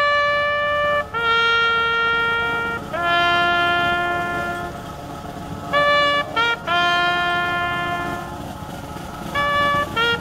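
A solo trumpet playing a slow call: long held notes, with two short quick notes leading into a new long note about six seconds in and again near the end.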